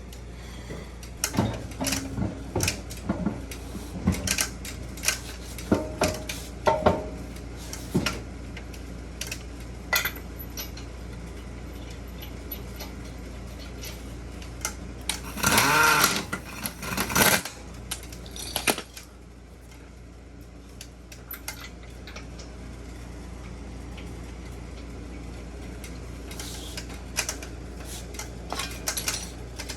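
Metal brake parts and hand tools clinking and knocking during front brake work, with a louder drawn-out sound a little past the middle.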